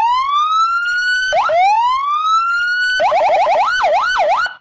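Electronic police siren: two rising wails, each climbing for about one and a half seconds and cut off sharply, then a quick yelp and a slower up-and-down warble that stops abruptly near the end.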